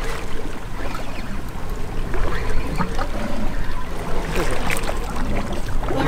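Wind and water noise aboard an offshore fishing boat: a steady low rumble with scattered small clicks and knocks.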